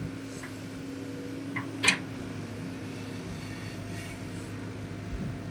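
Excavator running with a steady mechanical hum, with a single sharp metallic knock about two seconds in.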